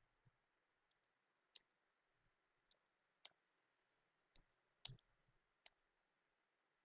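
Faint single keystrokes on a computer keyboard: about ten separate key presses, spaced irregularly half a second to a second apart, as a short line of numbers and symbols is typed.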